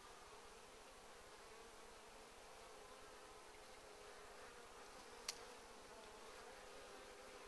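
Faint, steady buzzing of a mass of honeybees at a hive entrance, defending it against robber bees, its pitch wavering slightly. A single sharp click about five seconds in.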